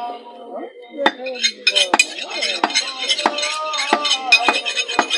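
Meat cleaver chopping beef on a wooden log chopping block, a sharp strike roughly every two-thirds of a second from about a second in. Under the chops comes a constant metallic clinking and scraping of a knife being sharpened against another blade.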